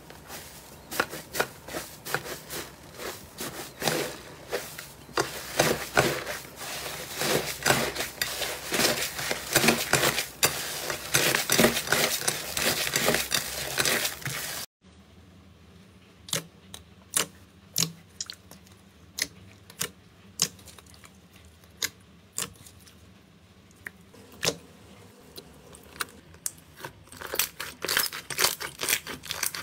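Hands squeezing and pulling apart a crumbly green slime, with dense crackling and tearing. About halfway it cuts abruptly to sparser sharp clicks and pops of slime being pressed by hand, which grow denser near the end.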